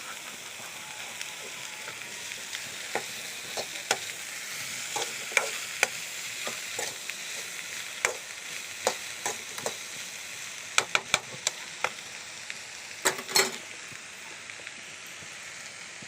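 Sliced okra frying in hot oil, a steady sizzle, while a spatula stirs it and clicks and scrapes against the pan. A quick run of sharp knocks comes about eleven seconds in, and a louder pair about two seconds later.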